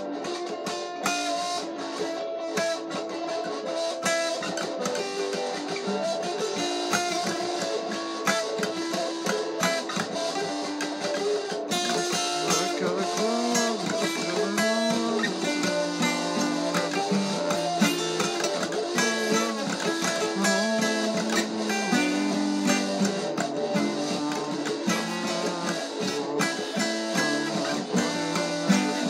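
Acoustic guitar played solo, a continuous run of plucked notes and chords.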